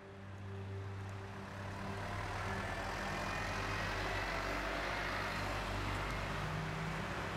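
Ambient soundtrack music fading in: a low held drone with shifting sustained notes under a swelling hiss.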